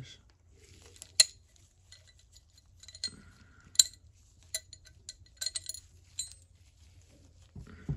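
Sharp metallic clicks and clinks of small steel parts in the head of a Williams S-51 Superratchet as it is taken apart by hand: a handful of separate clinks, the two loudest about a second in and near four seconds.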